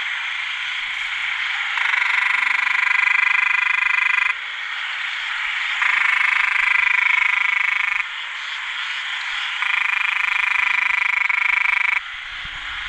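Male อึ่งแดง narrow-mouthed frogs calling to attract females after heavy rain. One close frog gives three long, drawn-out calls of about two seconds each, with short pauses between them, over a continuous chorus of other frogs.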